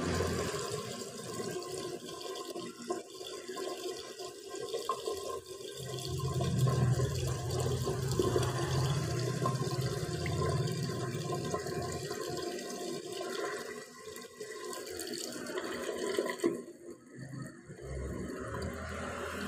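Water running from a tap in a thin stream straight into a washbasin drain, a steady splashing trickle that grows quieter for a moment near the end.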